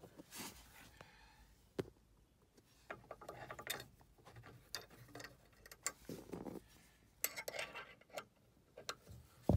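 Scattered small metal clicks and clinks, with rubbing and handling noise, as a hand sets a bolt through the steel foot bracket of a support beam into a van's floor lashing point and turns it with an Allen key.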